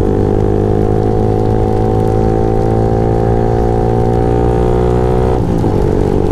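Motorcycle engine pulling under acceleration while riding, its pitch climbing steadily, then a gear change about five seconds in that drops the revs.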